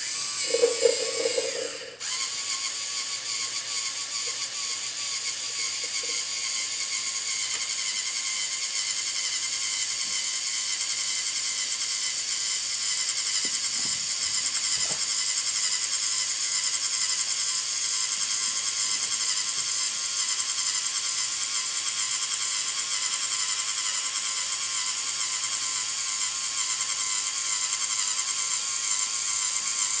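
LEGO Mindstorms NXT servo motors and their plastic gear trains whining steadily as the stair-climbing robot hoists its rear section. The whine cuts out and restarts near the start and again about two seconds in, with a brief lower-pitched sound between.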